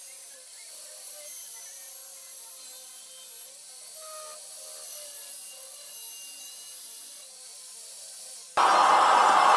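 Angle grinder grinding a steel railroad spike, a steady hiss with a faint wavering whine. About eight and a half seconds in, a much louder steady rushing noise cuts in suddenly.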